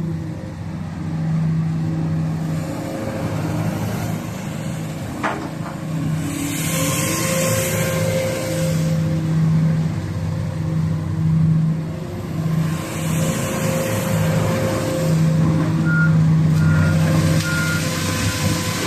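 Komatsu PC450-8R crawler excavator's diesel engine running, its hum swelling and easing as the machine works. A high rushing hiss comes twice, and three short high beeps sound near the end.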